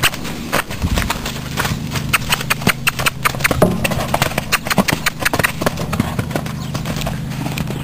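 A horse's hooves striking a dirt arena at a canter, a quick uneven run of hoofbeats.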